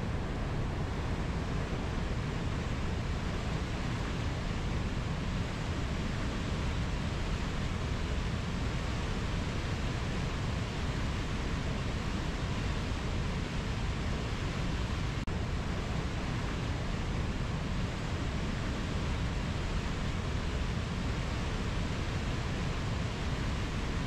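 Mountain river flowing over low rapids: a steady rush of water, heaviest in its low rumble.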